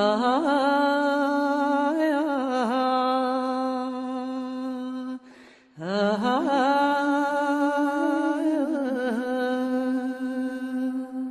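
A singer holding two long, steady notes, each sliding up into pitch at its start with a little wavering ornament soon after, and a short breath break between them.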